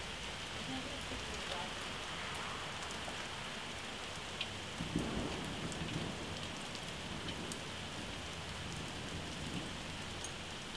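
Heavy rain from a hailstorm pouring steadily, with scattered sharp ticks of impacts on nearby surfaces. A brief low rumble comes about halfway through.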